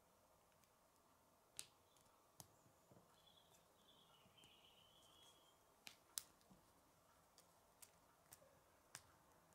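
Small plastic clicks of K'nex pieces being fitted together by hand as a wheel and hub are pushed onto the bike's rod: about eight sharp clicks scattered over near silence, the loudest about six seconds in, with a faint squeak in the middle.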